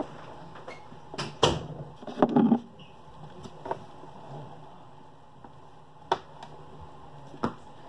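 Scattered knocks and clicks of small makeup containers and brushes being moved and set down in a dresser drawer, the loudest clatter about one and a half and two and a half seconds in, then single light taps near six and seven and a half seconds.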